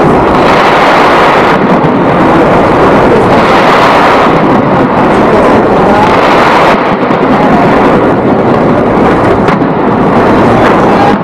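A large fireworks display going off in a dense, continuous barrage, heard as one loud, unbroken din rather than separate bangs.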